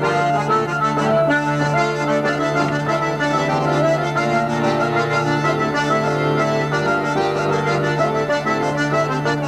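Traditional dance tune played on button accordion with hurdy-gurdy and bagpipes, the melody moving over a steady low drone.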